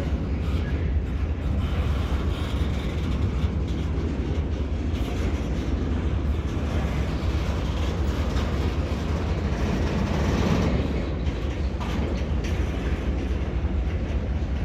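Intermodal freight train's container cars rolling past, a steady rumble of steel wheels on rail.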